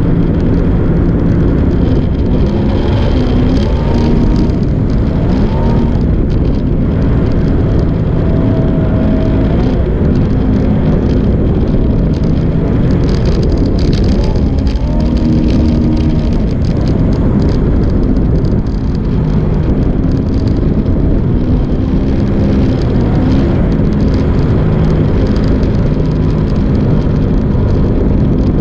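Sprint jet boat engine running hard under way, its note rising and falling several times with the throttle over a steady rush of noise.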